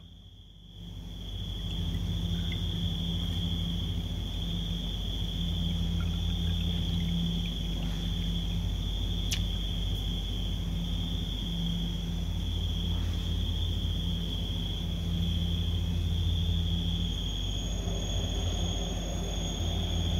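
A steady low machine hum with a continuous high-pitched tone above it, rising in over the first second; a faint sharp click about nine seconds in.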